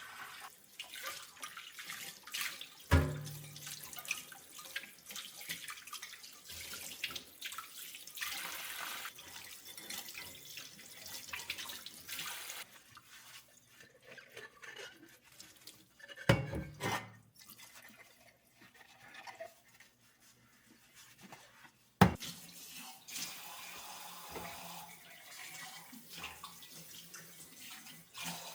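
Water running from a tap into a sink, on and off, with three sharp knocks about three seconds in, midway and about 22 seconds in.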